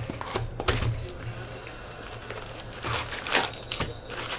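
Cardboard trading-card box being opened by hand and its foil-wrapped card packs pulled out: crinkling and rustling with scattered sharp clicks, busiest near the start and again around three seconds in.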